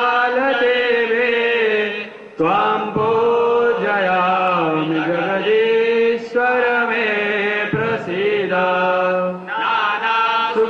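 Male voices singing a Hindu devotional chant into a microphone, in long held melodic phrases with short breaks about two and eight seconds in.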